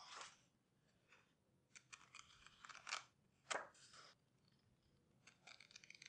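Paper pages of a case-bound hardcover planner being flipped and riffled by hand: a quiet, irregular run of paper rustles and crackles, with a sharper page snap about three and a half seconds in.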